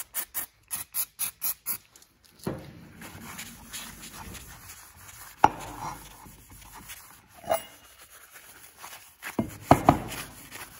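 An aerosol spray can with a straw nozzle gives about eight quick spurts, roughly four a second, onto a paper towel. Then the towel rubs over the steel axe head, with a few sharp knocks from the heavy chain links and axe head being handled on the board, the loudest cluster near the end.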